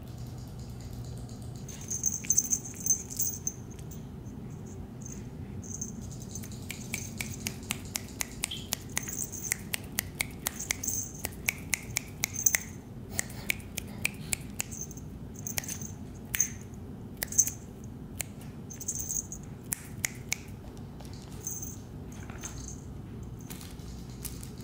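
Shih Tzu puppy chewing and gnawing: a long, irregular run of small sharp clicks and crackles from its teeth and mouth.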